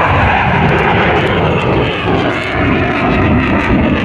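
F-16 fighter jet's engine heard as the jet flies past: a loud, steady rushing jet noise.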